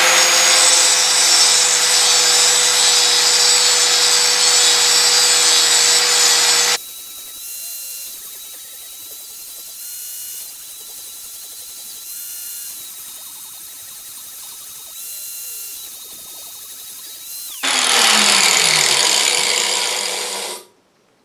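Angle grinder clamped in a bandsaw as a makeshift lathe, grinding a steel pipe bushing down to size. Loud grinding for about seven seconds, then a much quieter stretch of ten seconds with only a thin high whine while the bushing is cooled in water. Loud grinding starts again near the end and then stops abruptly.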